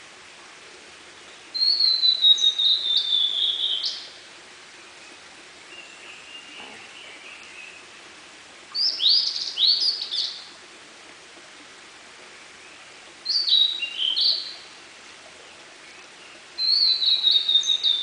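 Blue-and-white flycatcher singing: four separate phrases a few seconds apart, each a run of high, clear notes, several sliding downward, with quick short notes at the end of some phrases.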